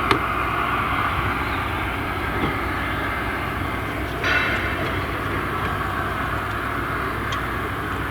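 A large vehicle's steady, loud roar, from an airliner or a passing train. A sharp click comes right at the start, and a brief squeal about four seconds in.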